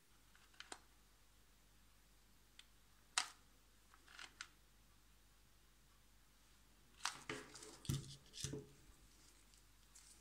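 Quiet handling noises from gloved hands working small model parts on a tabletop: a few light clicks and taps, then a short cluster of knocks and rustles about seven seconds in, loudest with a dull knock near eight seconds.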